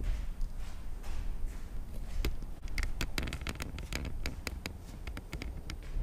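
Scattered light taps and clicks over a low steady rumble, coming more often after about two seconds in.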